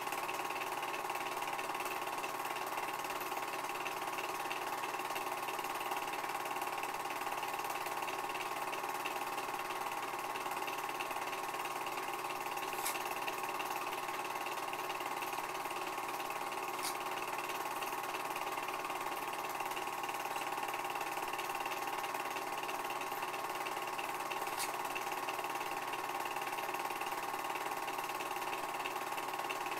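Home-movie film projector running: a steady mechanical whir of the motor and film transport, with a few faint ticks.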